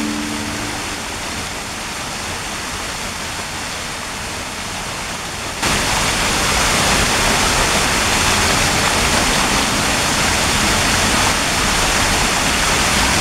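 Water trickling and splashing down a wall of stacked river pebbles in a decorative wall fountain, a steady even rush. It steps up louder and brighter about five and a half seconds in.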